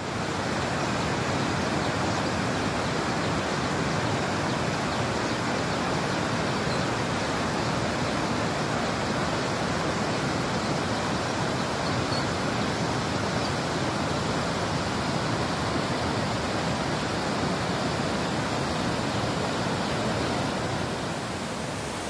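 Steady rush of a waterfall, an even hiss without breaks or changes.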